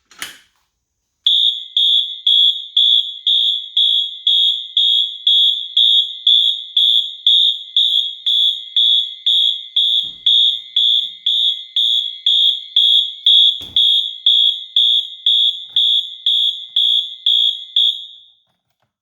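Wheelock MT-24MCW electronic fire alarm horn sounding in march-time code: evenly spaced, deafening loud high-pitched blasts, about two a second. The blasts start about a second in and stop near the end.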